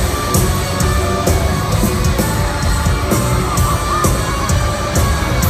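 Live post-hardcore band playing loudly, with drums and electric guitars, and a crowd yelling and singing along.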